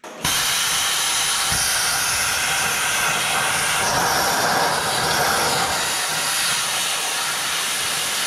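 Plasma cutter cutting through the steel of a worn excavator dozer blade: a loud, steady hiss of the air-driven arc that starts abruptly and holds at one level.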